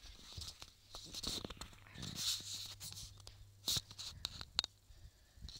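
Handling noise of a phone being carried while walking: irregular rustling and scraping with scattered sharp clicks and knocks over a faint low hum.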